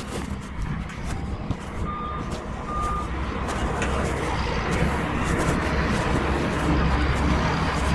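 Bulldozer's diesel engine running steadily and growing louder after a few seconds, with its backup alarm beeping twice early on.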